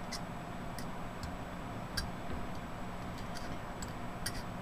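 Scattered light clicks and ticks of tweezers picking at burnt bologna stuck to a CPU's die, over a faint steady hum.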